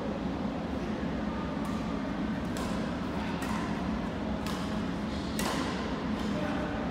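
Badminton rackets striking a shuttlecock in a rally: about six sharp hits, roughly one a second, echoing in a large gym hall over a steady low hum.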